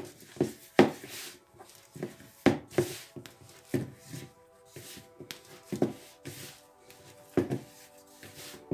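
Yeast dough being kneaded by hand in a bowl: dull thuds and squishes about once a second at an uneven pace, over quiet background music.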